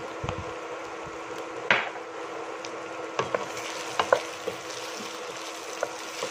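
Wooden spatula stirring diced fish balls, mushrooms and carrot in a stainless steel pot, knocking and scraping against the pot a few times, the loudest knock about two seconds in. Underneath, a light steady sizzle of the ingredients frying in sesame oil.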